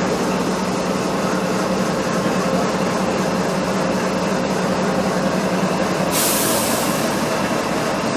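Diesel locomotive running under way, heard from its outside walkway: a steady engine hum under rushing wind and rail noise. About six seconds in, a short hiss cuts in for about a second.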